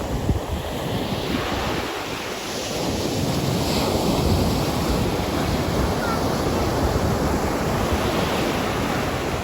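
Ocean waves breaking and washing on a beach, a steady roar of surf that swells a little a few seconds in, with wind buffeting the microphone.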